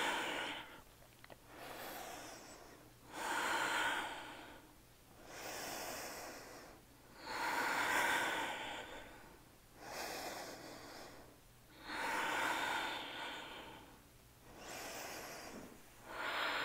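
A woman's slow, deep breathing, in and out through the nose, heard while she holds a deep yoga stretch. Louder and softer breaths alternate, about one full breath cycle every four seconds.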